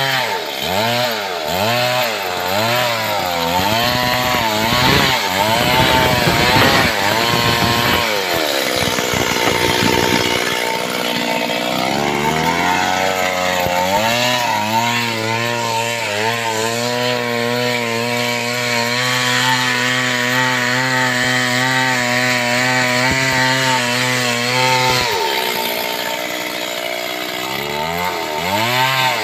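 Two-stroke chainsaw ripping lengthwise along a log, its engine pitch rising and falling over and over under load. Through the middle the pitch holds steadier; near the end it drops, then climbs again.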